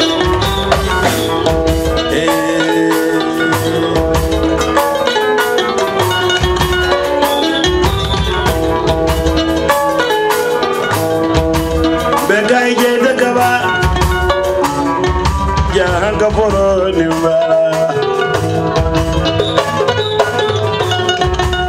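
Live West African band music: a kora's bright plucked runs with electric guitar over a steady drum-kit groove, and a voice singing at times.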